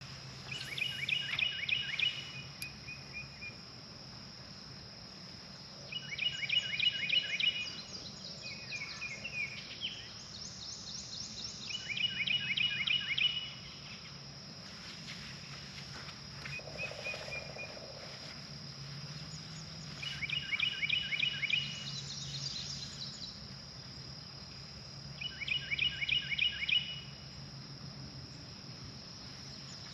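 A songbird repeating a short, rapid song about every five to six seconds, with other birds chirping now and then, over a steady high insect drone.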